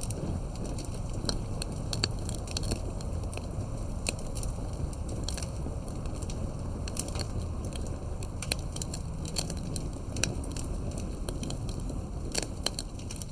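Campfire burning: a steady low rumble of flames with frequent sharp, irregular crackles and pops of burning wood.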